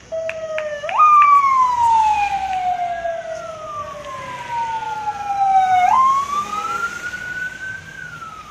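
A bus's electronic siren wailing: one tone jumps up about a second in, slides slowly down for about five seconds, then jumps and rises again before falling away near the end. A few sharp clicks come in the first second.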